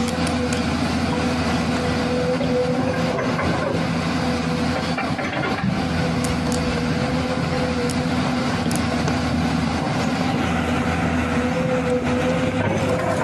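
An engine running with a steady, unchanging drone and a constant hum, with a few light clicks over it.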